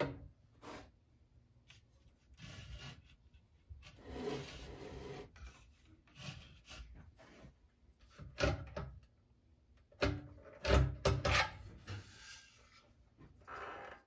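Hand-tool work on a Predator 212 engine while the bolt holding its gas tank is taken out: irregular metal scraping and rubbing, with a cluster of sharp knocks about two-thirds of the way through.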